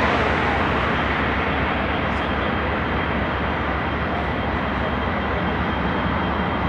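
Two Clyde-EMD diesel-electric freight locomotives, an A class and an X class, idling while the train stands: a steady engine sound with a low drone.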